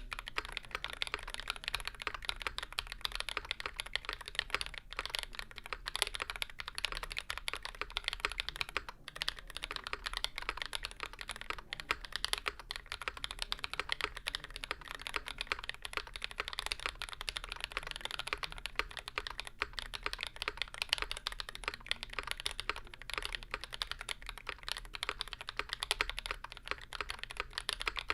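Continuous fast typing on a Percent Canoe Gen2 custom mechanical keyboard with YOK Burgundy switches, GMK keycaps and a 3 mm aluminium plate with tape mod, giving a clacky sound. There is a brief pause about nine seconds in.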